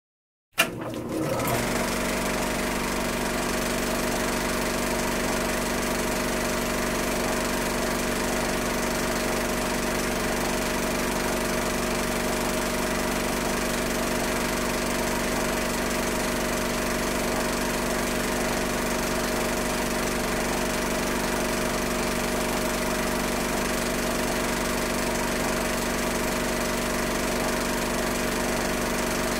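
Film projector running: after a sharp click about half a second in, a steady mechanical whirr with a constant hum of several fixed tones.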